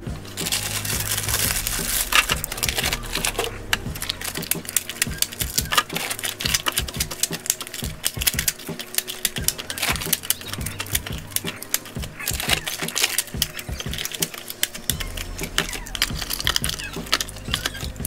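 Dense, rapid clicking and clattering of packaged snacks (wrapped small items and plastic Jell-O cups) being dropped and set into a clear plastic fridge organizer bin.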